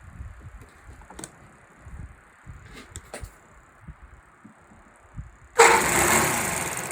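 Scattered light clicks and knocks, then about five and a half seconds in a gasoline-converted O.S. 91 Surpass four-stroke model airplane engine with electronic ignition starts with a sudden loud burst and runs on, falling off in level.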